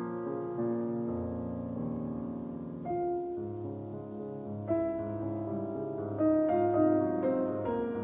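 Piano music: slow notes held and overlapping, with new notes struck every second or two.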